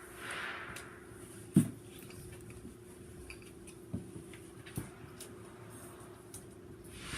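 Hand-work handling noises while wiring: a few sharp clicks and knocks, the loudest about a second and a half in, with short hissy swells near the start and end, over a faint steady hum.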